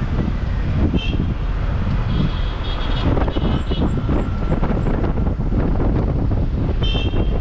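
Road traffic: a steady heavy rumble of vehicle engines and tyres, broken by short high-pitched beeps about a second in, a run of them between about two and three and a half seconds, and again near the end.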